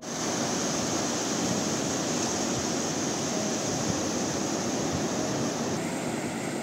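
Ocean surf breaking and washing up the sand: a steady, continuous rushing hiss.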